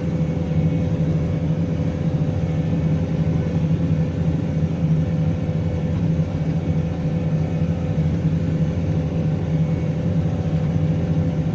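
New Holland T7.210 tractor engine running steadily under load while pulling a plough, a constant low drone with an even hum that does not change in pitch.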